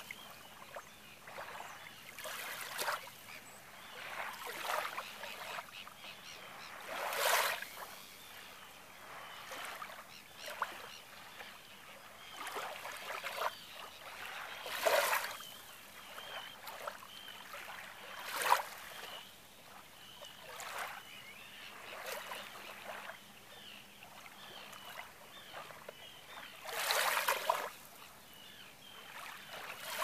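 Small lake waves lapping and splashing against shoreline rocks: an irregular wash every few seconds, with four or five louder splashes among softer ones.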